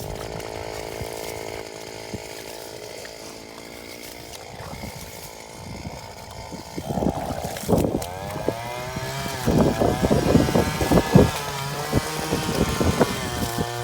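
A small petrol engine runs steadily, then from about seven seconds in revs up and down repeatedly and grows louder.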